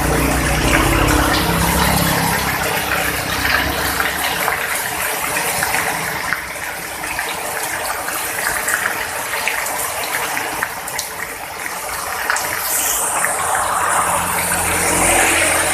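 Heavy rain falling, a dense steady hiss with many small drop ticks. A low engine rumble sounds at the start and again near the end.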